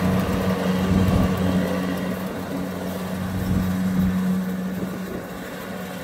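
Kubota rice combine harvester's diesel engine running at a steady hum, fading gradually as the machine moves away.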